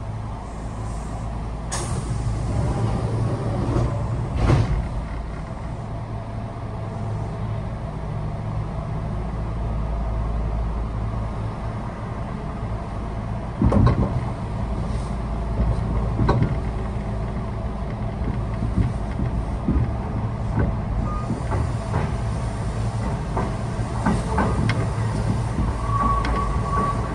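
Kintetsu 1620-series electric train running, heard from inside the car: a steady low rumble of wheels and motors, broken by sharp clacks over rail joints and points a few times. A steady high tone sets in near the end.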